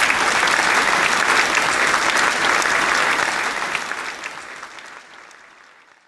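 Audience applauding, a dense steady clatter of many hands that fades away over the last couple of seconds.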